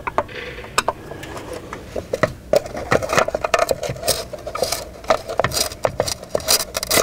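Screws being backed out of an RV awning motor's plastic end cover with a hand screwdriver: a scattered run of small metallic clicks, taps and scrapes.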